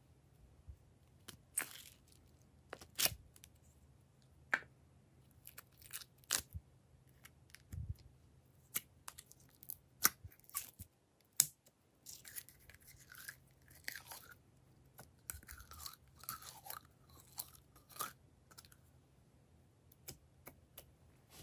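Red glitter slime being squeezed out of a small plastic cup and pressed into a tray of glossy slime: scattered sharp clicks and taps of the plastic container at first, then sticky squelching and crackling of the slime through the middle and latter part.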